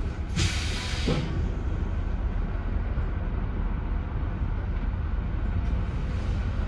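Leyland Atlantean AN68/1R double-decker bus's Leyland 680 six-cylinder diesel running with a steady low rumble, and a short loud hiss of released compressed air about half a second in, lasting about a second.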